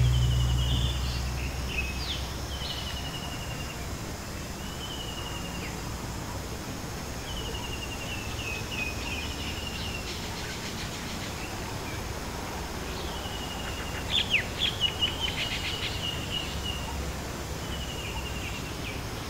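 A hanging bossed temple gong's low hum dying away over the first two seconds or so. Birds call repeatedly over a steady background hiss: short high phrases every few seconds, with a quick cluster of sharper chirps about two thirds of the way through.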